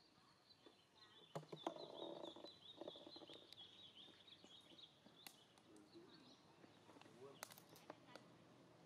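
Faint outdoor ambience. A high, wavering trill runs through the first five seconds or so, with a brief low voice-like sound about two seconds in and a few light clicks.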